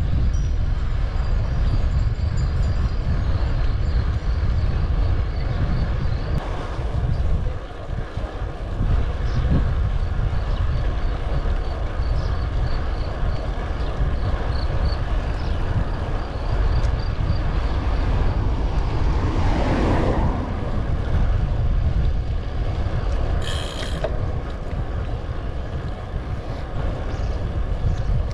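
Wind rumbling over the microphone of a moving bike, a steady low rush throughout. Near the end comes a brief swell of noise and then a short, high-pitched ring.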